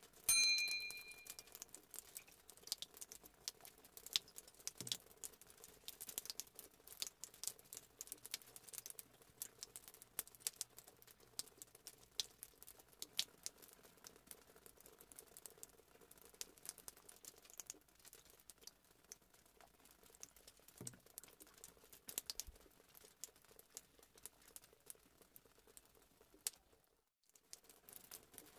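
A short notification-bell ding from a subscribe-button animation, ringing out over about a second just after the start. After it come faint, scattered clicks and crackles.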